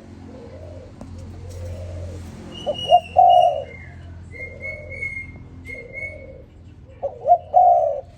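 Spotted dove cooing: two loud song phrases about four seconds apart, each two quick short notes followed by a longer coo, over fainter cooing repeated about once a second. Thin high whistled notes from another small bird sound in the middle.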